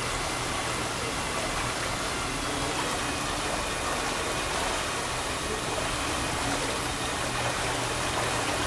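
Steady rush of water flowing along a boat ride's water channel, with a faint low hum underneath.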